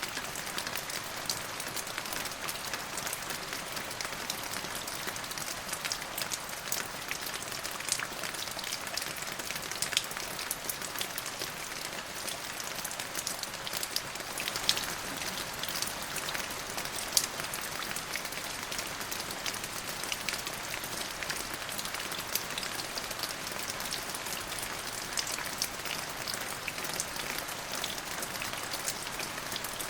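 Steady rain falling on a hard surface, a dense even hiss with many distinct drops pattering and a few louder individual splashes.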